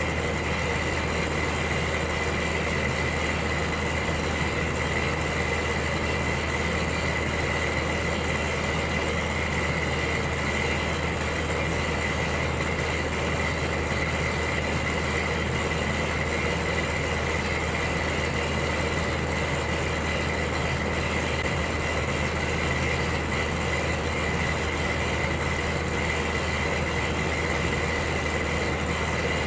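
Electric heater running steadily: an even hiss over a low hum, with a thin steady whine on top.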